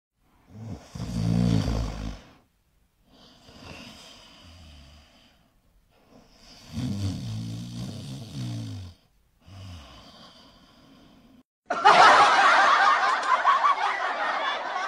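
French bulldog snorting and grunting as it breathes, in pitched bursts of a second or two with quieter snuffling between. Near the end, a much louder, harsh rasping noise lasts about three seconds.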